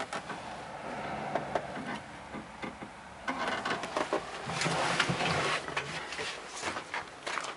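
Clicks, knocks and rustling of the camera being handled inside a telehandler cab, busiest and loudest about halfway through.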